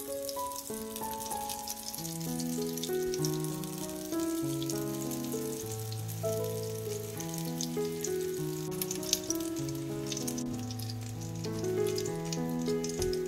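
Cottage-cheese pancakes (syrniki) frying in hot vegetable oil in a pan, a steady fine sizzling crackle, with background music of slow held melody notes throughout.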